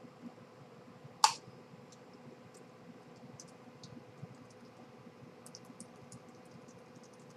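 Computer keyboard being typed on: scattered light key clicks, with one much louder, sharp key strike about a second in and a quick run of light clicks past the middle.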